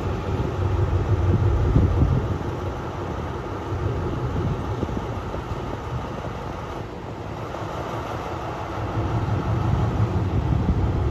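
Alsthom diesel-electric locomotive of the State Railway of Thailand approaching slowly, its diesel engine running with a steady low drone that grows louder over the last few seconds as it draws near.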